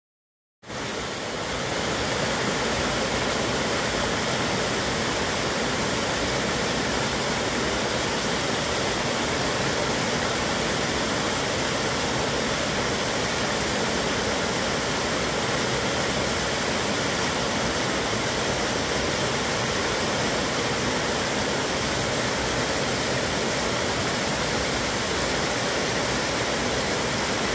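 Small woodland waterfall cascading over rocks into a pool: a loud, steady rushing of water that cuts in suddenly about half a second in.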